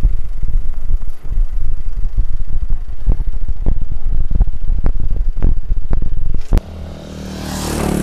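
Wind buffeting the microphone: a loud, gusty low rumble with scattered sharp knocks. It cuts off suddenly about six and a half seconds in, giving way to a quieter steady hum with a whoosh that swells and fades.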